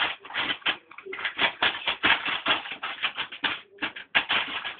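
A dog's claws and paws scrabbling and clicking rapidly on a tile floor, about six strikes a second, with a brief pause near the end.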